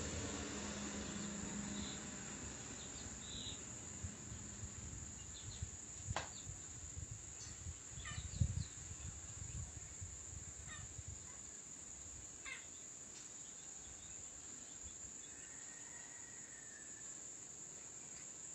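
Steady high-pitched insect trilling, with a few faint knocks in the middle.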